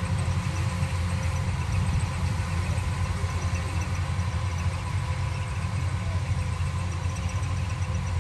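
An engine running steadily at an even speed, with a deep low rumble and a faint steady whine above it.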